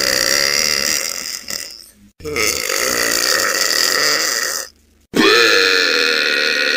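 A person belching: long drawn-out burps one after another. One already under way fades out about two seconds in, a second lasts about two and a half seconds, and a third starts about five seconds in.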